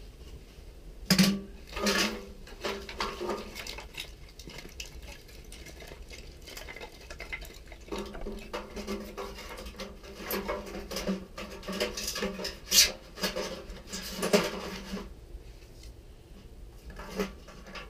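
Thin split kindling sticks clattering and knocking together as they are gathered by hand and stuffed into a rocket stove's feed tube. The knocks come in irregular clusters, loudest about a second in and again between about twelve and fifteen seconds in.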